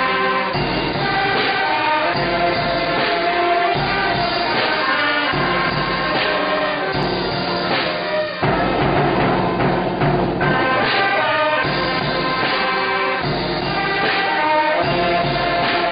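Women's brass band playing, saxophones and brass together. The music breaks off abruptly about eight seconds in and a different passage picks up.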